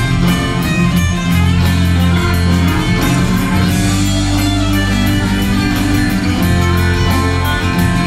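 Live band playing an Americana rock tune: strummed acoustic guitars over electric bass and drums at a steady beat.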